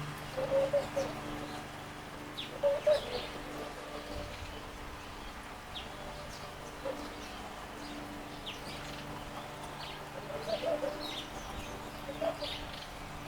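Garden birds calling: clusters of short, low calls about half a second in, around three seconds and again around ten to twelve seconds, with scattered high chirps in between, over a steady low hum.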